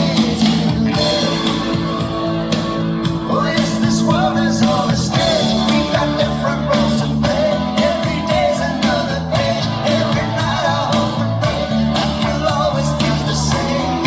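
Rock song with a singer and guitars played loudly through a stack of dual 12-inch 3-way line array cabinets and dual 18-inch subwoofers, as a sound test of the system.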